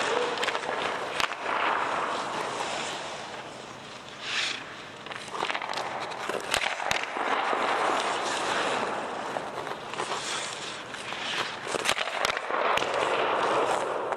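Ice hockey skates scraping and carving across the ice in swelling rushes, with several sharp cracks of sticks shooting pucks and pucks striking the goalie.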